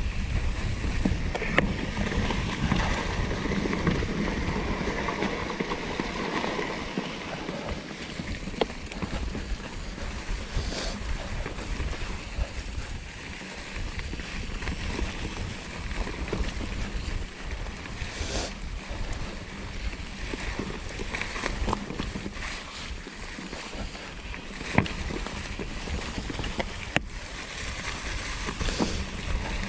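Norco Torrent plus-tyre hardtail mountain bike riding along a dirt trail: a steady rush of tyre and wind noise on the microphone, with scattered sharp clicks and knocks.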